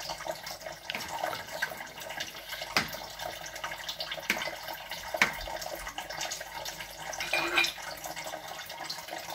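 Thick white sauce pouring out of a jar onto a tray of potatoes and minced meat, a wet liquid sound over a steady hiss, with a few sharp clicks of a metal spoon against the baking tray.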